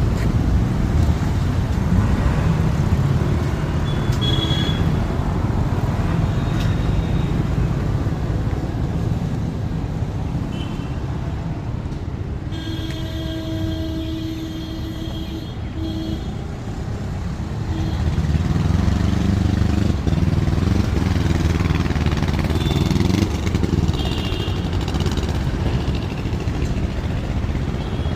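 Road traffic: vehicle engines running steadily. A horn sounds for about three seconds midway, with a short second toot right after. Later an engine's pitch rises and falls as it revs and passes.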